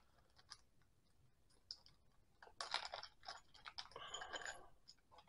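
Faint crinkling of a small clear plastic bag being opened by hand, in two short spells, the first about two and a half seconds in and the second about four seconds in.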